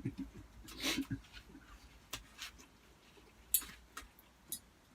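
Scattered light clicks and taps of cutlery against a plate or food container during a meal, the sharpest about three and a half seconds in, after a short breathy sound about a second in.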